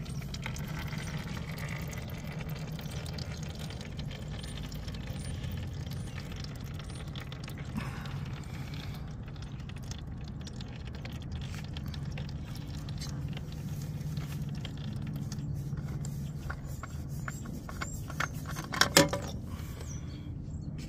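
Used motor oil trickling in a thin stream from a loosened oil filter into a plastic drain pan, over a steady low hum. A brief clatter near the end.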